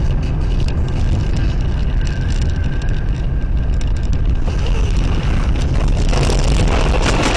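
Car driving on a snowy road, heard from inside the cabin as a loud, steady low rumble of tyres and road noise. About six seconds in a louder rushing noise with sharp clicks comes in as the car runs off the road into the snowbank.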